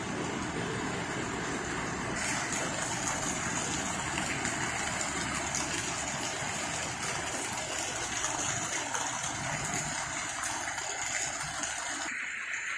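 Heavy rain falling on flooded gravel ground, then, from about two seconds in, streams of rainwater pouring down onto grass and splashing, with the rain steady throughout.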